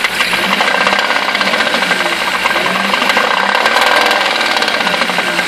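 BMW M52 straight-six engine running with a rapid, rhythmic knock coming from the engine.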